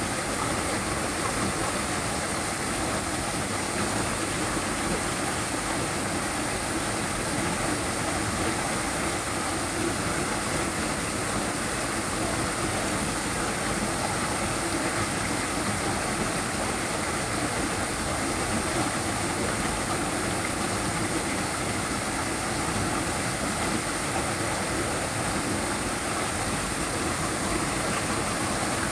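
Small waterfall, its water falling and rushing in a steady, unbroken noise.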